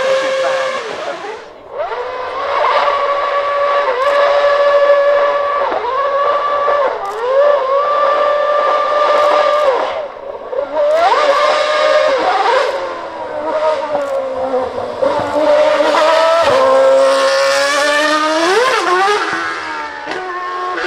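A Red Bull RB8 Formula 1 car's 2.4-litre Renault RS27 V8 is held at a steady high pitch in several long stretches, with brief dips between them. It then climbs sharply in pitch through quick gear changes as the car pulls away, and climbs again later on.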